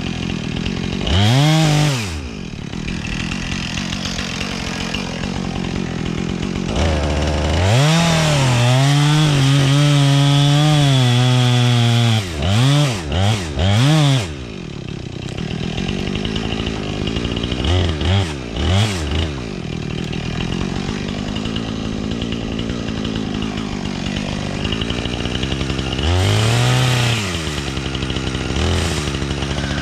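Husqvarna 460 two-stroke chainsaw idling between short throttle blips. About a third of the way in it runs at full throttle for several seconds, its pitch wavering under load as it cuts, then it revs in quick bursts and drops back to idle.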